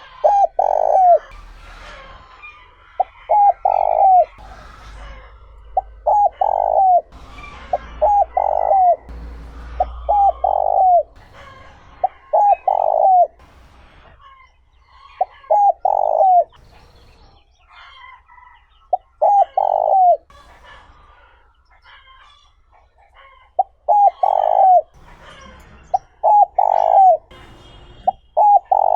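Spotted dove cooing: a phrase of a couple of short notes followed by a longer coo that falls in pitch, repeated again and again with short pauses between. Faint chirps of other small birds sound between the phrases.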